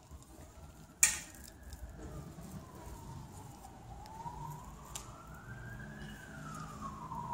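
Emergency vehicle siren on a slow wail, its pitch rising and falling with each cycle taking about five seconds. A sharp click about a second in is the loudest single sound.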